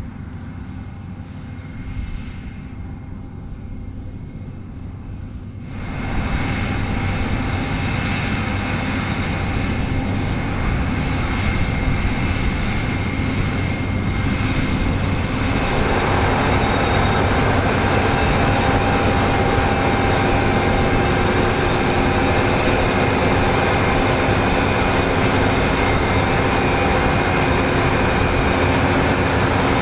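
New Holland CR11 combine harvester running with a steady drone and whine, jumping sharply louder about six seconds in and again around fifteen seconds in.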